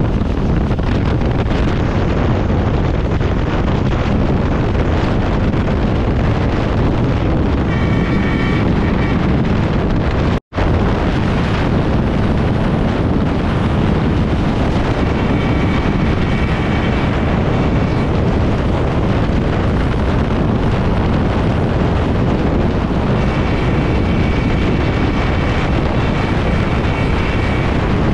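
Tezgam Express passenger train running at high speed, wind buffeting the microphone over a steady loud rumble. A faint high ringing tone comes and goes three times, and the sound cuts out for an instant about ten seconds in.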